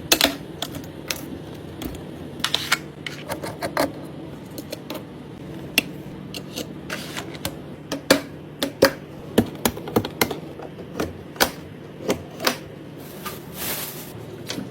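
Irregular clicks, taps and knocks of computer hardware being handled and fitted together, over a steady low hum.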